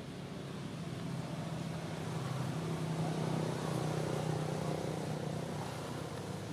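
A motor vehicle's engine hum that grows louder over the first three seconds or so and then eases off.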